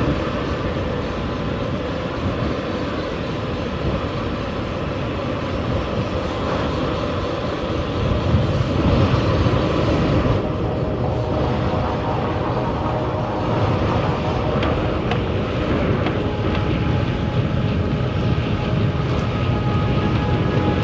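Wind rushing over the microphone of a bicycle-mounted camera while riding along a road, a steady low rumbling noise that grows a little louder about eight seconds in.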